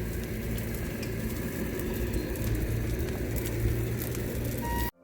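Brush-pile fire burning, with scattered crackles and pops over a steady low rumble. The sound cuts off suddenly just before the end.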